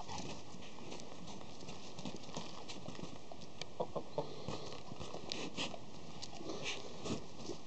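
A rooster and a yellow Labrador scuffling on bare dirt: a scatter of short clacks and scuffs, more of them in the second half.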